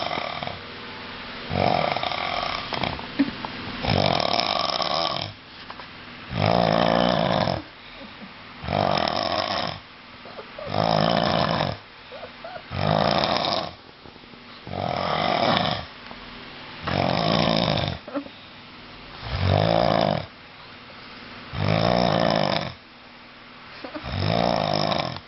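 A sleeping man snoring loudly, one long buzzing snore roughly every two seconds in a steady rhythm, quieter in between.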